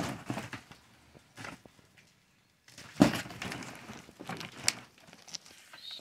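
Cardboard box and plastic pigeon perches being handled: scattered rustles and knocks, the loudest knock about three seconds in.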